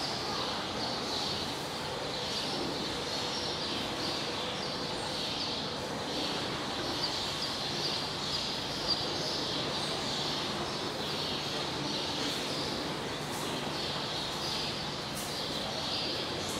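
Steady background noise with small birds chirping over and over, high-pitched, and a faint low hum beneath.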